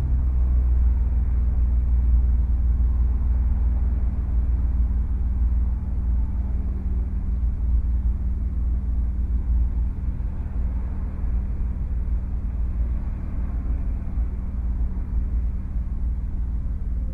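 2008 Honda Accord coupe driving: a steady low engine and road rumble with uneven low thuds underneath, the knocking that the owner traces to the rear BC Racing BR coilovers.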